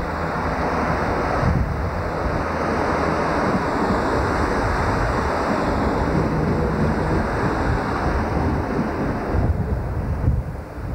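Class 158 Sprinter diesel multiple unit running close past the platform: a steady, loud rushing of wheels and air, with wind buffeting the microphone. The sound changes abruptly about a second and a half in and drops away briefly near the end.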